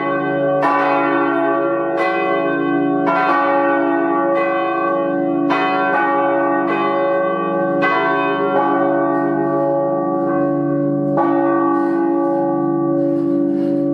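Church bells ringing: several bells of different pitch struck in turn, a fresh strike about every second, their tones overlapping in a continuous ring.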